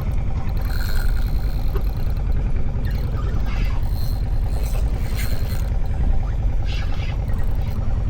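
Fishing boat's engine running steadily, a low rumble with a faint hum over it.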